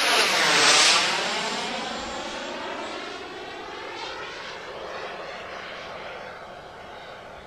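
A radio-controlled model Hawker Hunter jet flying past: its engine sound peaks about a second in, then drops in pitch and fades as it flies away.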